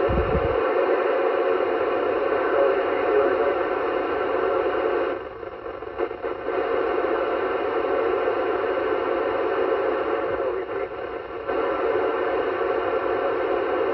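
FM receiver hiss from the Yaesu FT-991A's speaker, open on the ISS 437.800 MHz downlink between transmissions. The hiss is steady and thin, and it quietens briefly about five seconds in and again near eleven seconds. A soft low bump sounds at the very start.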